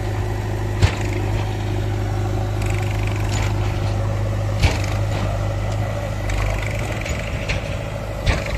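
Heavy diesel machinery engine running steadily, with three sharp metallic knocks: about a second in, near the middle and near the end.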